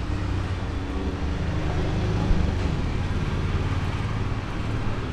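Steady low rumble of street traffic, with vehicle engines running close by and a single short knock a little over two seconds in.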